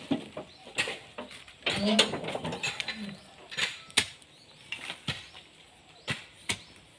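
Scattered sharp clicks and knocks, about one a second, from handling around a truck whose diesel engine is not running. Two short, low vocal sounds come about two and three seconds in.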